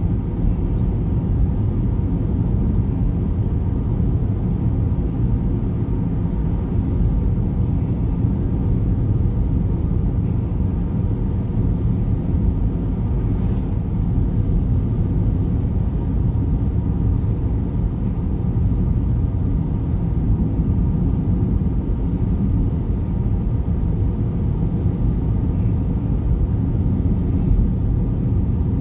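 A car cruising at a steady speed, heard from inside the cabin: low, even road noise of tyres on asphalt and the engine running, with no change in pace.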